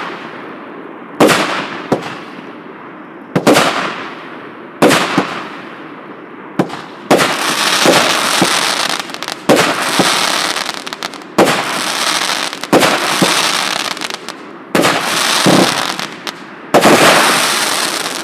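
A 36-shot fireworks cake firing: loud shell bursts come one to two seconds apart. Each is followed by a fading hissing tail, and the tails grow longer and denser from about seven seconds in.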